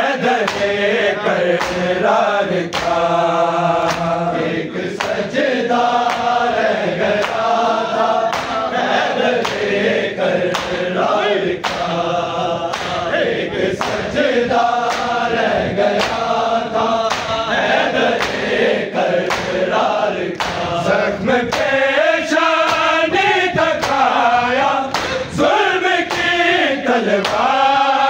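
Men's voices chanting a noha in unison as a group, the melody rising and falling, over a steady beat of sharp strikes typical of matam chest-beating.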